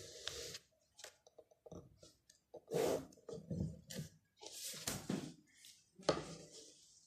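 A pen scratching across paper in several short, irregular strokes as the axes of a graph are drawn.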